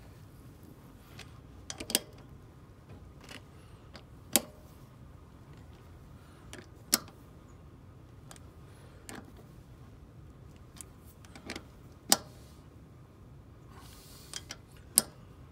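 Socket wrench tightening the flange nuts of a freewheeling hub, a little at a time in a cross pattern: single sharp metal clicks roughly every two seconds.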